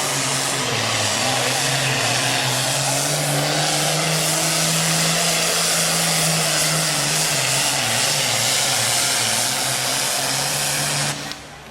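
Super farm class pulling tractor's turbocharged diesel engine running flat out under load as it drags the weight sled, a loud, steady drone that wavers a little in pitch. It cuts off suddenly near the end.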